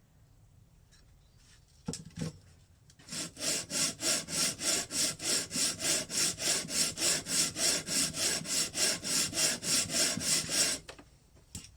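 A motorcycle engine's crankcase half rubbed back and forward on 120-grit emery sheet over a granite board, to clean up and flatten its gasket face. After two light knocks, the rasping strokes run evenly at about four a second for some eight seconds, then stop.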